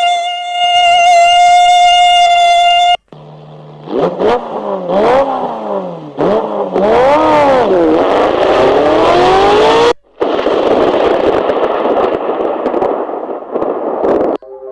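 A string of sound-effect samples played back from a phone: a steady electronic tone for about three seconds, then repeated rising and falling pitch sweeps like vehicle engines revving, then a few seconds of dense rushing noise.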